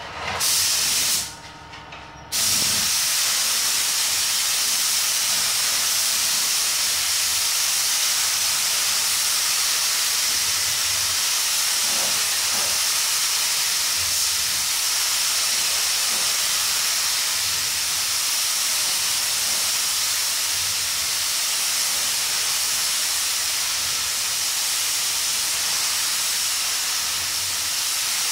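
Iwata AirGunsa 1.3 mm air spray gun hissing as it atomises clear coat: a short burst of about a second, a brief pause, then a long steady spray pass.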